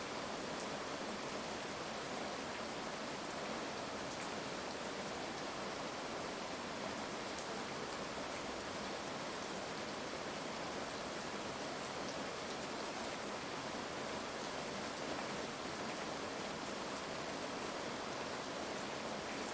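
Steady heavy rain falling, an even hiss with faint scattered drop ticks and no thunder.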